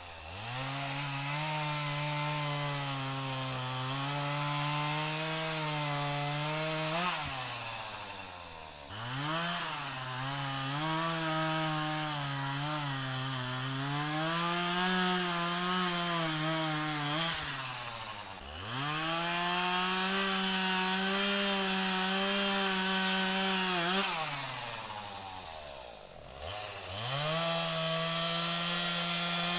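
Gas chainsaw running at full throttle while cutting into downed trees, its pitch sagging and recovering as the chain bites into the wood. The throttle is let off three times, about a quarter of the way in, around two-thirds in and near the end, and the engine drops toward idle before revving back up for the next cut.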